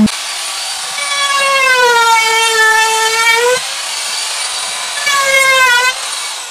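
Compact trim router running with a high-pitched whine that dips in pitch and rises back twice, as if working the planter box's pallet-wood edges, then cuts off at the end.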